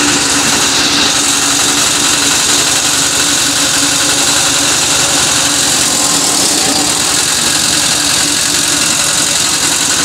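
A generator and the electric straw chaff cutter it powers running continuously: a steady, loud mechanical drone with a constant hum.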